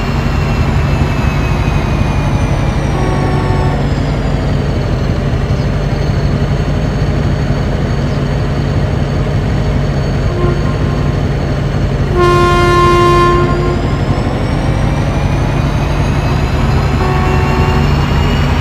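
Train running with a steady low rumble, its horn sounding in short blasts several times and one longer, louder blast about twelve seconds in.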